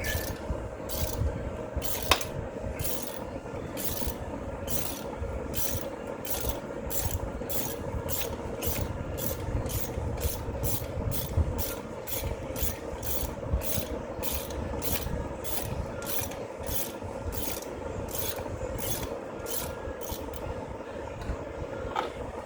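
Hand ratchet being worked back and forth on the water pump bolts, its pawl rasping in short even strokes about twice a second.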